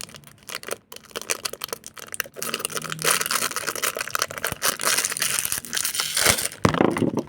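Crinkling and rustling of a mystery-box figure's packaging as it is unwrapped and handled by hand, a dense run of small crackles with a few sharper knocks near the end.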